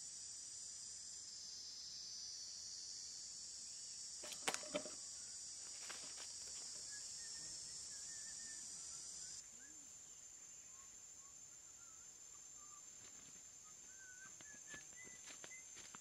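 A steady, high-pitched insect chorus, cut through about four and a half seconds in by a quick clatter of sharp clicks as the fan-guard trap drops shut. After about nine seconds the insect drone thins to a single steady whine, with faint bird chirps.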